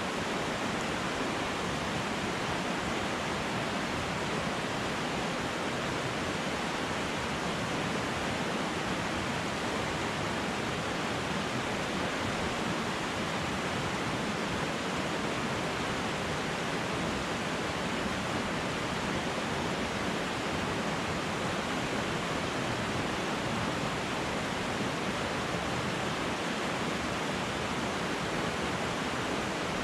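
River water rushing over rocks: a steady, unbroken rush of white water.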